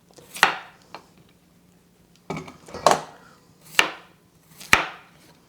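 Knife cutting potatoes into pieces on a cutting board: about five sharp knocks, roughly a second apart.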